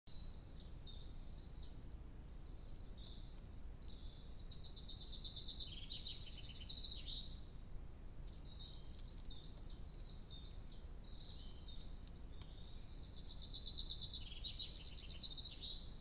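A songbird singing: two long, high song phrases, each a run of varied notes ending in fast trills, with a short pause of about a second between them. A steady low rumble lies underneath.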